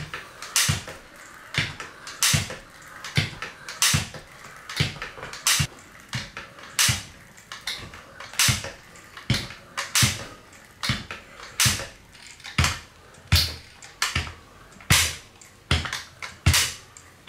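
PROiron mini stepper's pedals knocking down against their bottom stop with each step, a sharp clack a bit more than once a second in a steady rhythm. The step is short, so the pedals bottom out with a bang unless braked just before.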